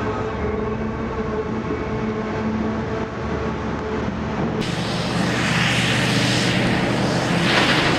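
Heavy machinery's diesel engine running at a steady pitch; about four and a half seconds in the sound changes abruptly to a noisier machine sound with hissing and clatter near the end.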